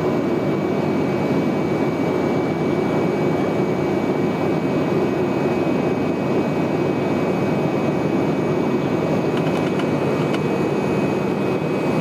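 Steady cabin drone of an ATR 72 turboprop in cruise, heard from a seat beside the propeller: an even low rumble with a constant thin high whine over it.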